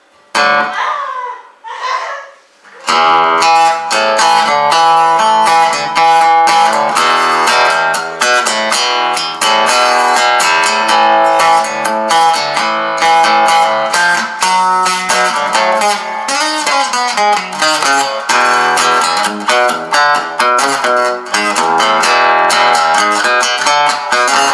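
Madera acoustic guitar, newly fitted with a pickup, played with picked notes and strummed chords. Steady playing starts about three seconds in, after a couple of short sliding sounds.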